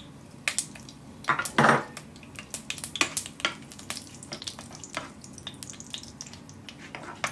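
Mustard seeds and whole spices crackling in hot oil in a pan, with irregular sharp pops; the popping shows the oil is hot enough for tempering. About a second and a half in, a louder clatter of a utensil against the pan.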